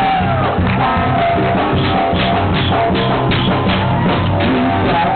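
Live band playing upbeat music through PA speakers, with a drum kit keeping a steady beat under keyboard.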